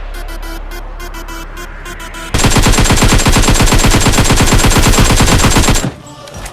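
Electronic music over a steady low bass drone. About two seconds in, a loud, rapid, evenly spaced rattle of sharp bangs cuts in, runs for about three and a half seconds and stops suddenly.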